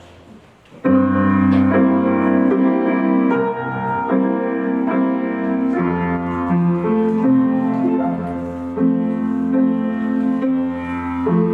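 Piano accompaniment for a folk-dance barre exercise, starting abruptly about a second in and going on with steady, evenly changing chords over a bass line.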